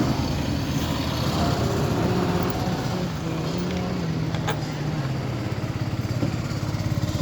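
Motorcycle engine idling steadily, with a single sharp click about four and a half seconds in.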